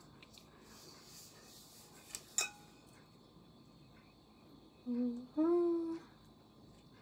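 Two light metallic clinks on the stainless-steel mixing bowl as batter is poured from it, the second ringing briefly, followed about five seconds in by a woman humming two short notes, the second sliding upward.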